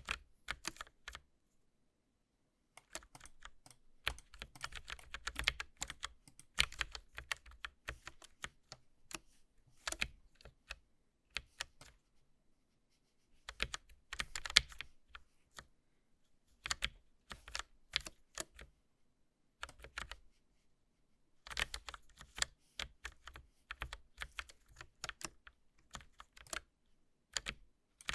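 Mechanical keyboard keys clicking in quick clusters of keystrokes, broken by short pauses of a second or two.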